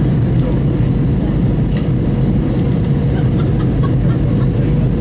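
Steady cabin noise of an Airbus A321-200 in flight, heard from a window seat: engine and airflow noise as a heavy low rumble with a faint steady hum. A brief click about two seconds in.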